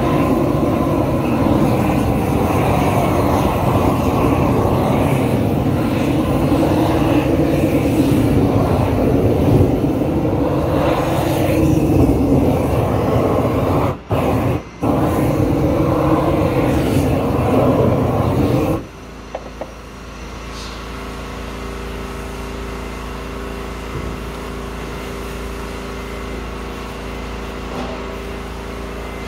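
Propane roofing torch burning loudly with an even rushing noise, broken twice by very short gaps about two-thirds through. About two-thirds of the way in it gives way to a much quieter steady hum with faint steady tones.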